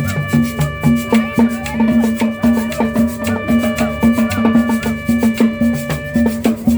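Latin dance music with a steady beat: repeating bass line, shaker and percussion, and sustained keyboard or accordion tones.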